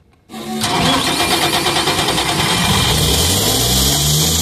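Deutz common-rail diesel engine of a Sullivan screw compressor starting: a brief crank, then it catches about half a second in and runs, its speed climbing over the next few seconds before levelling off.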